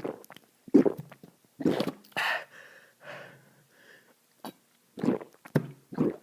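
A person burping, a string of short belches about half a second to a second apart, with breathy gasps in between.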